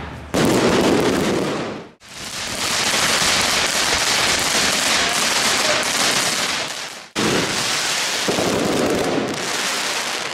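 Fireworks crackling densely, in several loud clips joined with abrupt cuts about two seconds in and again about seven seconds in.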